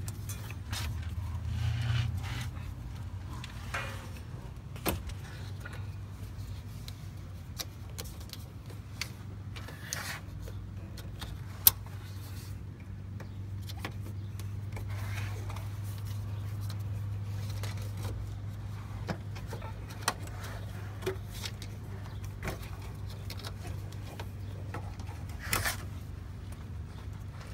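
Small clicks, knocks and rattles of hands fitting a plastic wiring connector and vapour hoses onto a Jeep's evap canister, with one sharp click about twelve seconds in, over a steady low hum.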